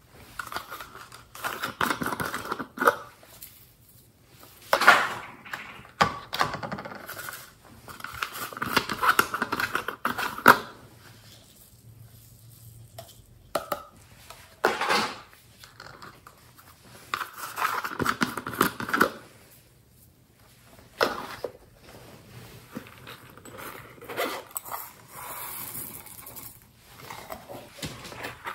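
Glitter, sequins and tiny beads shaken out of small plastic jars into a glass dish, rattling in several pours of a second or two each. Sharp clicks of the jars come between the pours.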